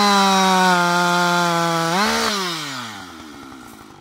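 Husqvarna 560 XP two-stroke chainsaw at full throttle cutting through a log, its pitch sagging slightly under load. About two seconds in the revs rise briefly as the chain comes free of the wood, then the throttle is released and the engine winds down to idle.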